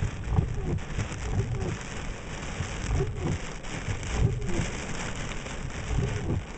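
Heavy rain pelting a car's windscreen in a severe thunderstorm, a dense steady hiss with uneven low rumbling beneath it.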